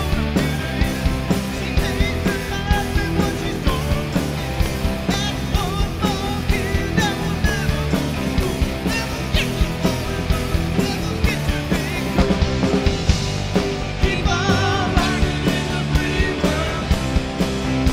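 Rock band playing a song: a steady drum beat under electric guitars and bass.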